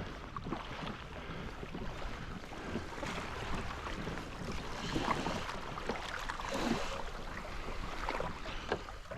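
Water splashing and lapping against a kayak hull as the kayak moves, with wind buffeting the microphone.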